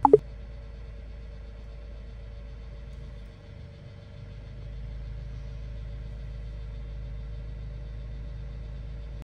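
Steady low hum of a parked Toyota's engine idling, heard from inside the cabin, dipping briefly about three seconds in. A short falling chirp sounds right at the start.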